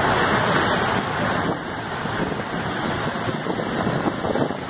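Floodwater rushing and churning as a locomotive ploughs through it along submerged tracks, pushing a bow wave ahead of it: a steady noisy wash.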